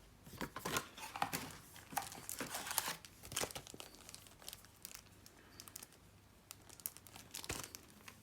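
Paper and cardboard packaging crinkling and rustling as it is handled, in irregular bursts, busiest over the first three seconds or so, with a few more rustles near the end.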